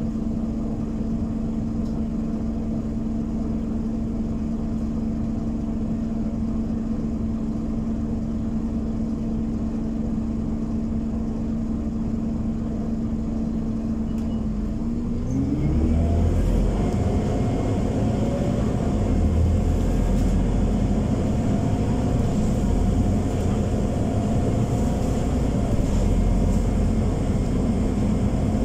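Scania Omnicity city bus diesel engine heard from inside the passenger cabin, humming steadily at idle. About halfway through, its pitch rises and it runs louder with a deeper rumble as it revs up under load.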